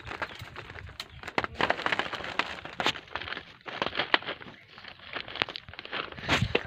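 Irregular cracking and crackling of twigs and small fruit-laden branches being snapped and shaken in a tree canopy, with rustling between the sharper snaps.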